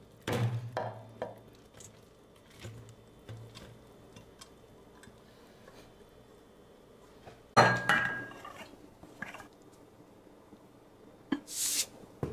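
Dishes, pots and utensils knocking and clinking in a kitchen, a few separate sharp knocks with the loudest about seven and a half seconds in, and a brief rushing noise near the end.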